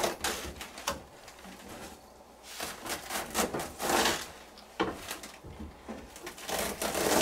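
Kitchen knife slicing through Chinese cabbage onto a cutting board, in runs of quick strokes separated by short pauses.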